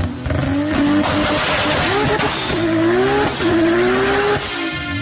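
MK4 Toyota Supra's 2JZ straight-six at high revs through a large single exhaust pipe, with a rushing noise under the engine note. The pitch wavers up and down, then drops sharply and climbs again near the end.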